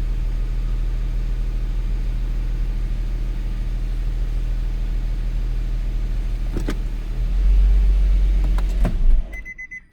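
Engine of a 2010 Infiniti EX35 idling as a steady low rumble, with a couple of clicks. The rumble swells briefly near the end, then stops.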